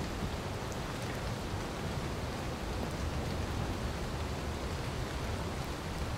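Steady, even rushing hiss with a low rumble beneath it and a few faint ticks.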